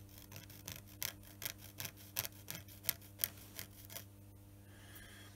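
Fingertips rubbing and scraping over a freshly milled metal surface among swarf chips: a run of short, scratchy strokes, about three or four a second, over a steady low hum.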